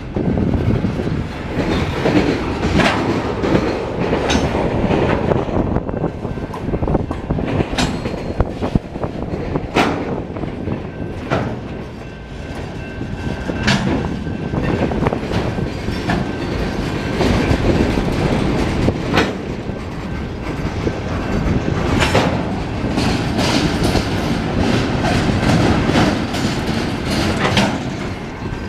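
Norfolk Southern mixed freight train's cars rolling past slowly: a steady rumble of wheels on rail with irregular sharp clacks as the wheels cross rail joints.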